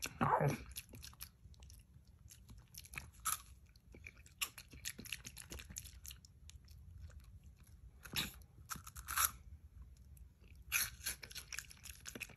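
Close-up chewing and crunching of food by a capuchin monkey eating from a man's mouth: a long run of small crisp crunches and mouth clicks, with louder bursts of crunching about eight, nine and eleven seconds in.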